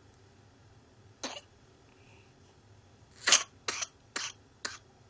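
A child coughing from whooping cough (pertussis). There is one cough about a second in, then from about three seconds in a run of short, sharp coughs about half a second apart, the first the loudest, typical of a pertussis coughing fit.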